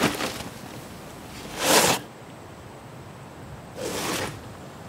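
Tan nylon tactical backpack being handled and opened: two short rustling swishes about two seconds apart, the first the louder.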